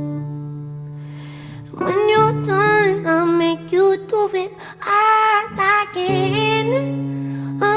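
A held accompaniment chord fades, then about two seconds in a female voice sings a wordless, wavering melody over sustained low accompaniment notes.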